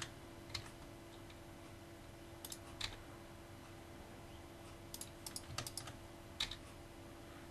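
Faint, scattered clicks of a computer keyboard and mouse: single taps, then a quick cluster of several about five seconds in, over a faint steady hum.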